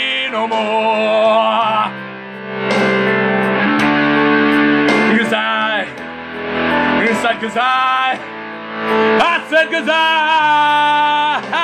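A man singing a rough rock vocal over heavy blues-rock music with electric guitar, ending on a long held note with vibrato.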